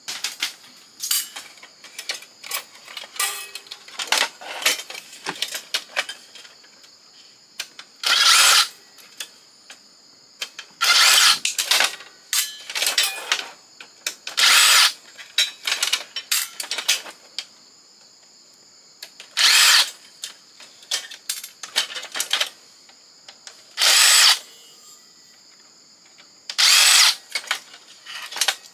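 Cordless drill or power screwdriver run in short bursts of about half a second to a second, several seconds apart, backing screws out of an old fax machine's housing. Between the bursts come small clicks and rattles of parts being handled.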